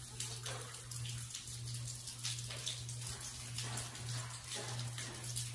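Water dripping and splattering irregularly onto a wet floor, many drips in quick succession, over a steady low hum.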